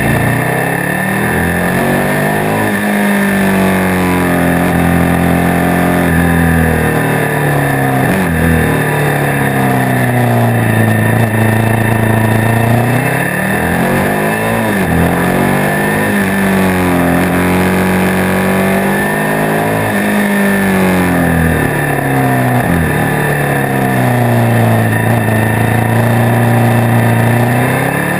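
Motorcycle engine heard from a camera mounted on the bike while riding. The engine note rises and falls again and again as the bike slows for bends and accelerates out of them, over a steady rush of wind.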